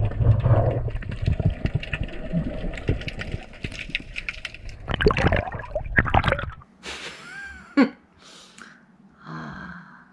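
Sea water sloshing and splashing close around the camera, cutting off suddenly after about six and a half seconds. Quieter, scattered sounds follow, including a short gasp-like breath.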